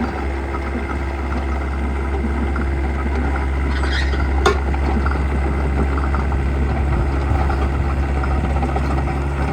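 Case CX55B mini excavator's Yanmar four-cylinder diesel engine running steadily, with one sharp metallic knock about four and a half seconds in.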